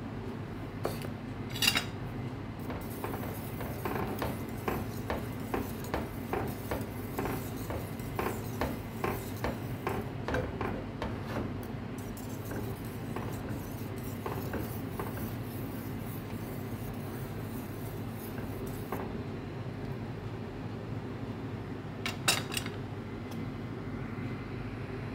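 Wire whisk stirring creamy soup in a stainless steel pot, its wires clicking against the pot about twice a second for several seconds, then more sparsely. A sharper clink comes near the start and another near the end, over a steady low hum.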